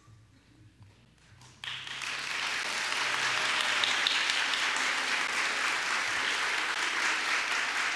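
After a brief hush, an audience breaks into applause about a second and a half in, and the clapping holds steady.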